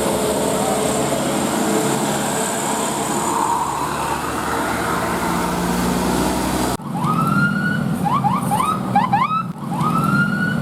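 Steady vehicle engine and street noise, then about seven seconds in, an Indonesian bus's 'telolet' musical air horn plays: one long rising note held high, followed by a quick run of short rising chirps, with the phrase repeated twice.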